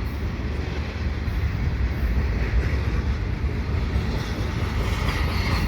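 Double-stack freight train rolling past at speed: a steady low rumble of steel wheels on the rails.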